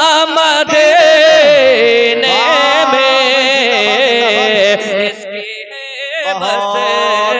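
A man sings a naat in Urdu into a microphone, drawing out long, wavering melismatic notes between the words of the verse. The singing dips quieter about five seconds in, then a new long note is held.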